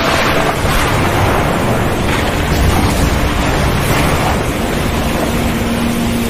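Stormy open sea: a steady rush of wind and waves, with surf swelling and breaking every second or two.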